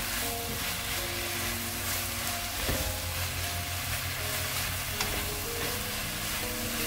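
Fish-cake strips, onion and carrot sizzling in a nonstick wok as they are stir-fried with a wooden spatula over medium-low heat, a steady hiss with the scrape of stirring. Two brief knocks about a third and two-thirds of the way in.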